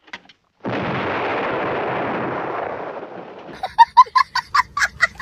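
A heavy artillery gun firing: a sudden blast whose rumble fades away over about three seconds. Near the end a small child laughs hard in quick, high bursts, louder than the blast.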